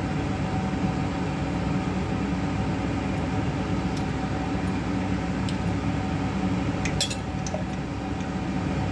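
Steel bowl lightly clinking against the rim of an aluminium pot while ground nuts are tipped and scraped into it: a few separate light clicks and a small quick cluster about seven seconds in, over a steady low kitchen hum.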